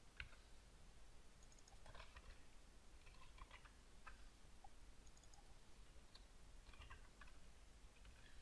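Faint, sporadic computer keyboard typing: isolated key taps and short runs of a few keys, over a low steady hum.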